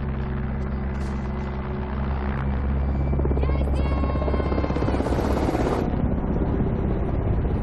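Helicopter flying overhead, its rotor and engine making a steady low drone. A woman shouts once for help about three and a half seconds in, and a louder rushing noise swells briefly about five seconds in.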